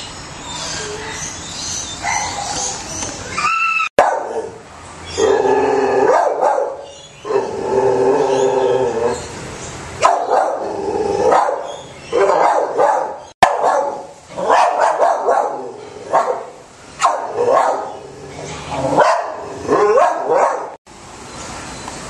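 Dogs barking, yipping and whining in repeated bouts, with pitched cries that rise and fall.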